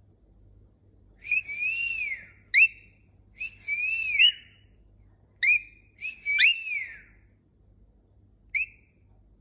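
Cockatiel whistling: three rising-and-falling whistled phrases with short, sharp upward chirps in between.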